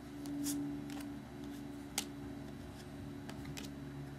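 Trading cards handled and flipped through by hand: light clicks of card stock, a brief rustle about half a second in and a sharper tick about two seconds in, over a steady low hum.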